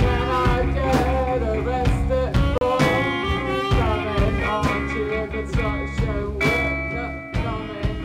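Live band playing, with electric guitar and bass over a drum kit keeping a steady beat.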